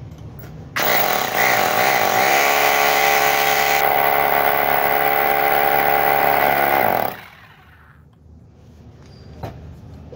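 Ralli Wolf 2-26 hammer drill switched on about a second in. Its motor spins up to a steady, loud full-speed run on its freshly fitted armature for about six seconds, then is switched off and winds down. It is a test run after the armature change, and the machine is running well.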